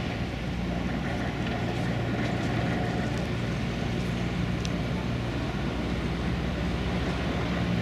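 Diesel engine of a heavy construction machine running steadily under work, a constant low hum.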